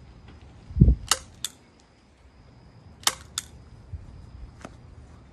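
A low thump about a second in, then two pairs of sharp clicks and a few fainter ticks, from hands working on a plastic Hot Wheels track.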